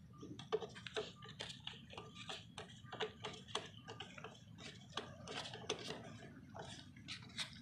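Faint, irregular quick ticks of a screwdriver turning screws out of a lawnmower engine's plastic carburetor cover.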